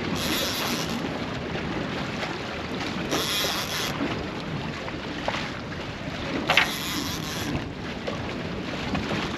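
Wind buffeting the microphone on a small boat over choppy sea, with water lapping around the hull. A short rush of hissing sound comes about every three seconds, and there is one sharp knock about two-thirds of the way through.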